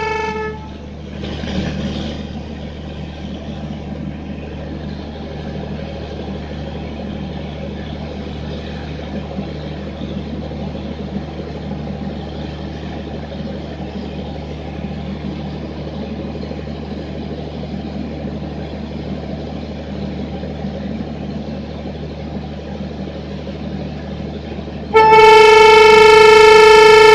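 A WAP-7 electric locomotive's horn cuts off just after the start. A steady rumble of the train with a low hum follows for about 24 seconds, and then the horn sounds again, long and loud, for the last two seconds.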